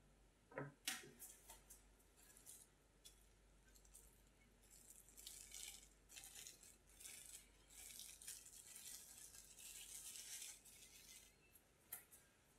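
Two light knocks near the start, then cling film wrapped around metal cheesecake ring moulds crinkling softly in irregular bursts for several seconds as the moulds are lifted and handled; a single tick near the end.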